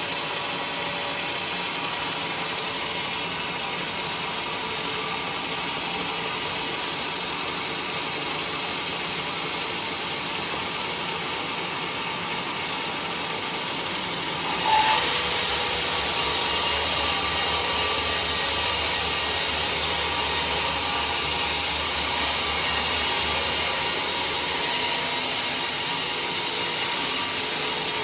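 Woodworking machinery running steadily, with a sudden jump in loudness about halfway through, after which it runs a little louder.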